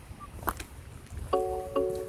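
Background music: chime-like struck notes start about a second and a half in, over a low rumble with a sharp knock about half a second in.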